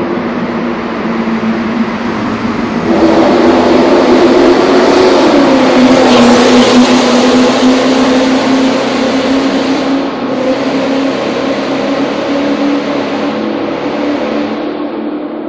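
Nissan F50 Cima's exhaust note echoing in a road tunnel. It rises sharply in loudness about three seconds in as the car accelerates, drops in pitch a couple of seconds later, and eases off toward the end as it moves away down the tunnel.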